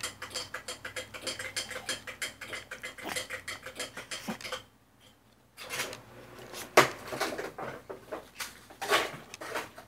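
Tableware and utensils clinking and clicking rapidly while someone eats. The clatter stops about halfway, then a few louder knocks follow.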